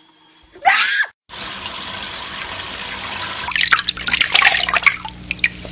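Shower water spraying steadily, with a parrot splashing and flapping in it: irregular loud splashes start a little past halfway. A short sweeping call is heard about half a second in.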